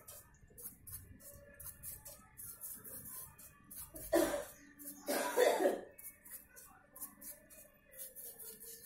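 A bicycle bearing being washed by hand in a tin of cleaning liquid: quick short swishes and splashes throughout. A person coughs twice, about four and five seconds in.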